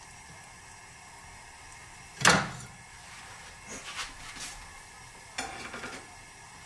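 Kitchen dishes and utensils being handled: one loud knock about two seconds in, then lighter clinks and clatters.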